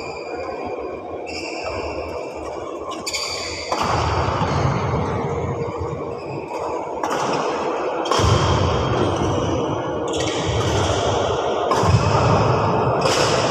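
Badminton play in a large hall: a string of sharp racket-on-shuttlecock strikes, each ringing out with echo, over low thuds of footfalls on the court.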